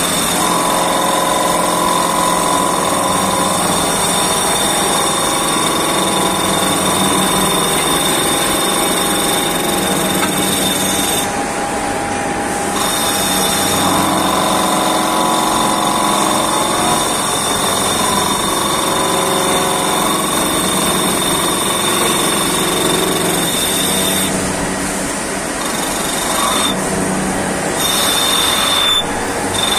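CNC turning lathe running in production, its spindle turning and the tool cutting a metal part, with a steady high whine and wavering mid-pitched machine tones. The high whine drops out briefly a few times.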